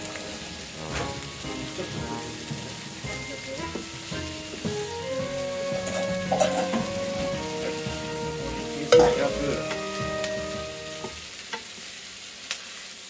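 Onion and bacon sizzling in a frying pan while being stirred, with a utensil knocking against the pan now and then, sharpest about nine seconds in. A tune of held notes plays underneath.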